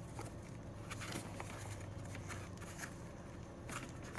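Faint scattered clicks and rustles of small items and packaging being handled, over a low steady hum.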